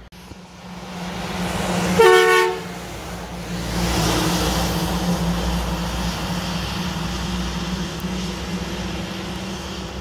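Mack McNeilus front-loader garbage truck driving past on a wet road: its diesel engine and tyre hiss grow louder. About two seconds in comes a short horn blast of about half a second, the loudest sound. The engine and wet-tyre noise then go on steadily as the truck pulls away.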